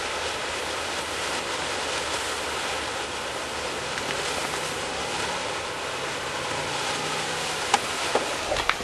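Potassium nitrate, sugar and paraffin wax smoke mix burning in a foil-wrapped spray-can cap, giving a steady rushing hiss as it pours out smoke. A few sharp clicks near the end.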